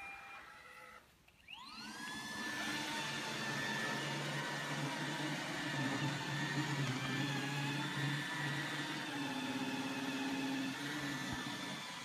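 iRobot Roomba 880 robot vacuum's motor and brushes spinning up with a rising whine about a second and a half in, then running with a steady whir as it cleans carpet.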